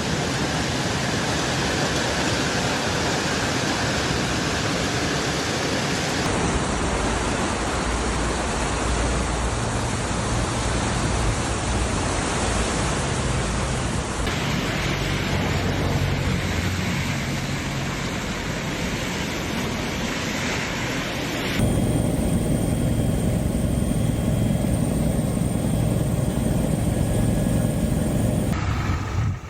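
Steady rushing noise of floodwater and heavy rain over several clips cut together, each with a slightly different sound. The last clip, starting about three quarters of the way in, is louder and deeper.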